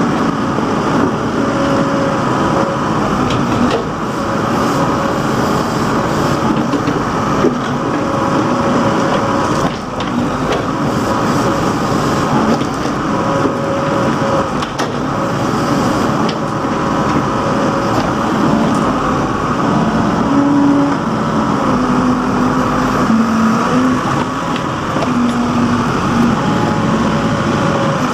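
Case 580 backhoe loader's diesel engine running steadily while the backhoe digs, with faint tones that shift in pitch now and then as the machine works.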